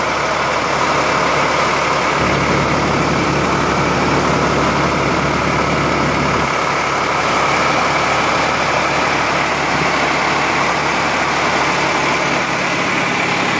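Sonalika DI-50 tractor diesel engine running steadily while powering a portable rice mill, the engine and mill together making a dense, continuous mechanical din. A low drone grows louder about two seconds in and drops back about four seconds later.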